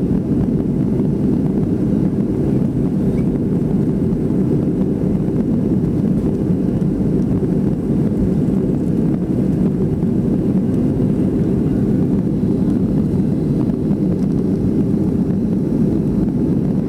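Boeing 757 cabin noise heard from a window seat during the climb after takeoff: the jet engines and rushing air make a loud, steady, low drone that does not change.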